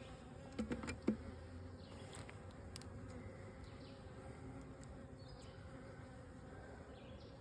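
Honeybees buzzing steadily around an open nuc hive, a low, even hum, with a few light clicks about a second in.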